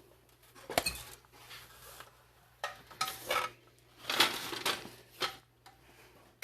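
Metal parts of a gas furnace being handled: a few sharp clinks and short clattering scrapes, over a steady low hum.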